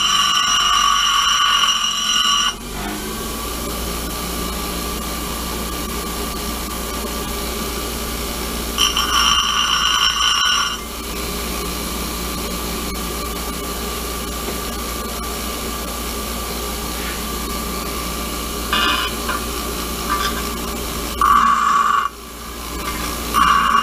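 Bench grinder running steadily, with a small steel part pressed against the spinning wheel in bouts of high-pitched grinding: about two seconds at the start, two more about nine seconds in, and several short touches near the end.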